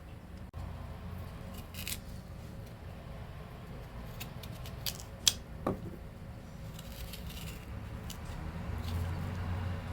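A spoon scraping and scooping out the flesh of a raw purple turnip to hollow it, with a few short clicks, the sharpest about five seconds in.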